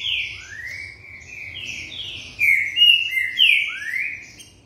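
Green-winged saltator (trinca-ferro) singing a fast run of loud slurred whistles, some falling and some rising in pitch. It stops about four seconds in.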